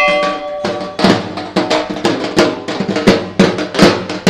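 The ring of a struck brass temple bell dies away in the first half-second. Then music with a quick drum beat takes over, about four or five strokes a second.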